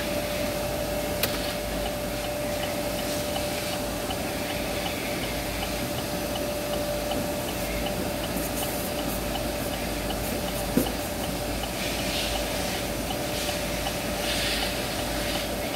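Car wash tunnel machinery running: a steady hum and hiss with one steady tone, faint regular ticking about twice a second, and a single knock about eleven seconds in.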